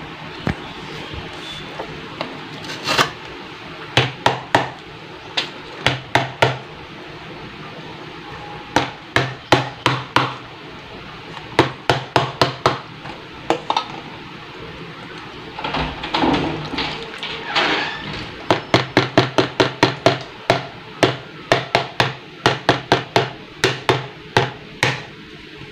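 Repeated sharp knocks, coming in runs of several at about two to three a second, like hammering.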